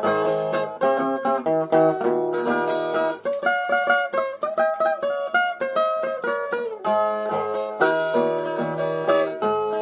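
Brazilian viola, the ten-string folk guitar, playing an instrumental interlude: quick picked melody notes, with a stretch of longer, ringing held notes in the middle before the fast picking returns.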